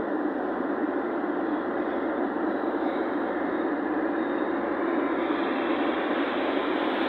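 Steady noise of a vehicle on the move: a continuous rush of road and engine noise that holds level throughout.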